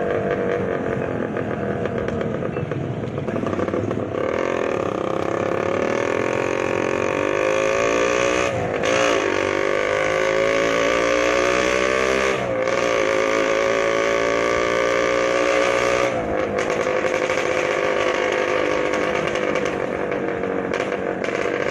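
Motorcycle engine and exhaust running steadily, with its pitch rising and falling a few times as the throttle is opened and eased off.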